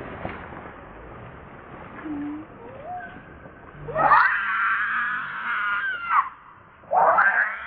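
Newborn baby macaque screaming: after a few quiet seconds, a loud, high-pitched wavering cry of about two seconds, then a second cry starting near the end.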